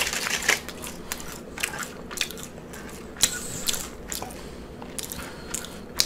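A person chewing French fries with the microphone right at the mouth: close, irregular short clicking and crunching chews.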